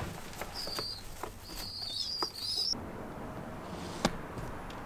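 Domestic pigeons in a wooden loft: several short, high, thin peeps with light rustles and clicks. About halfway through, the sound cuts to a quieter, steady outdoor background with a single click.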